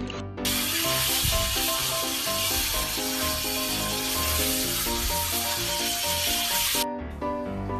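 Water spraying from a handheld shower head onto a wet puppy's coat: a steady hiss that starts about half a second in and cuts off suddenly near the end, over background music.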